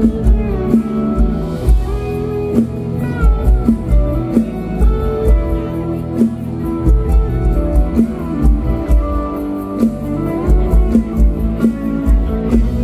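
Amplified stage-show music: an instrumental passage led by guitar over bass and drums, with a steady beat and no singing.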